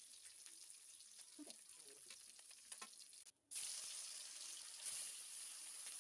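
Fish steaks frying in oil in a metal kadai, a steady sizzle, with a few light clicks and scrapes of a metal spatula against the pan in the first half. The sound cuts out briefly a little over three seconds in, then the sizzling comes back louder.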